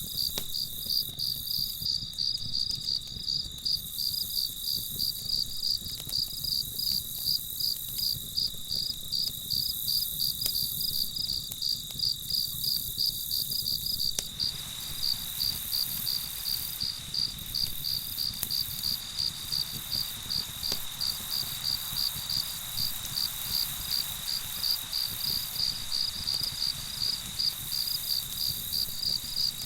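Crickets chirping in a steady rapid rhythm, about three chirps a second, over a continuous high trill. A soft even hiss joins underneath about halfway through.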